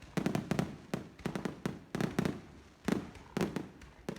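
Aerial fireworks bursting: a rapid, irregular series of sharp bangs, some close together, each trailed by a low rumble.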